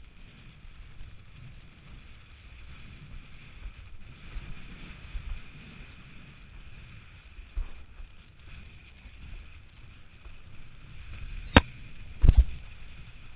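Windsurf board sailing fast over choppy water, heard through a rig-mounted action camera as a steady rumble of rushing water and wind. Near the end there are two sharp knocks less than a second apart.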